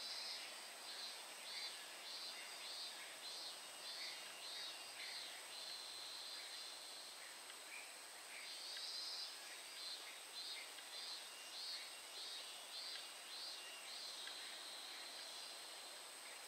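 Faint outdoor ambience: a steady high-pitched drone with a repeating call of short pulsed notes, about two a second, in two runs of several seconds each, the second starting about eight seconds in.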